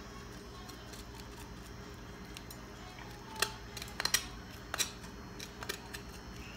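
Knife scraping against the bones of a raw turkey wing while deboning it: several sharp clicks and scrapes between about three and six seconds in, the loudest near four seconds.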